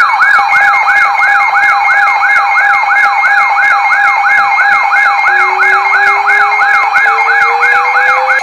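Several weather alert radios sounding their alarms at once, signalling an incoming weather warning: a siren-like tone that falls again and again, about three times a second, over steady and pulsing beeps, with a slowly rising tone joining about five seconds in.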